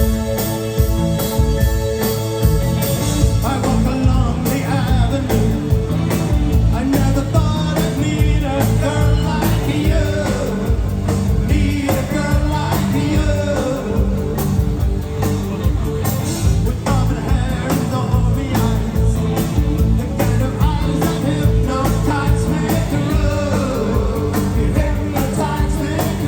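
Live new wave rock band playing, with electric guitar, drums and bass. A lead vocal comes in about three and a half seconds in and carries on over the band.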